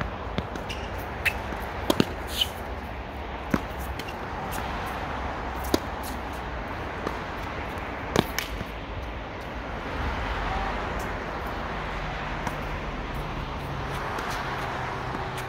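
Tennis rally: sharp pops of the ball struck by rackets and bouncing on the court, a second or a few seconds apart, over a steady low background rumble.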